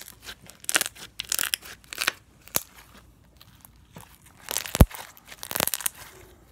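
Purple slime squeezed and folded by hand, giving squelches and bursts of crackling as trapped air bubbles pop, in several separate handfuls. One sharp, loud pop about five seconds in is the loudest sound.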